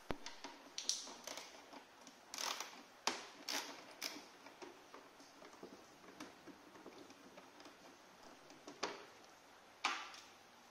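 Screwdriver clicking and scraping as it backs out the screws of a scooter's plastic engine cover, with small clicks of hands on the plastic panel. Irregular clicks, a few sharper ones about two to four seconds in and again near the end.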